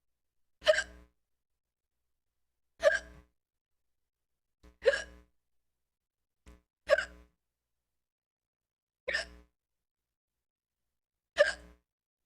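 A person hiccuping loudly and regularly: six short, sharp hiccups about two seconds apart.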